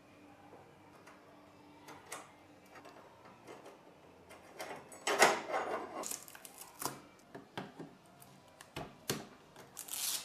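Small clicks, knocks and rattles of an Allen key working the bolts and the metal screen bracket on a 3D printer's frame. A louder rustle comes about five seconds in, and another near the end as protective plastic film is peeled off the touch screen.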